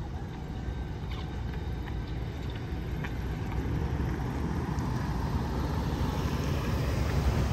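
Road vehicle passing, a low rumble of engine and tyres that grows louder toward the end.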